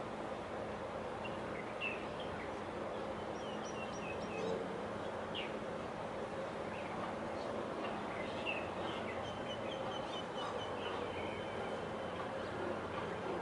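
Small birds chirping in short, scattered calls over a steady low hum of outdoor background noise.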